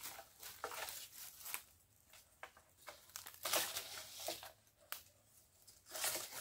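A long bamboo pole rustling and scraping among the leaves and branches of a star apple tree as it is poked up into the canopy, in irregular bursts.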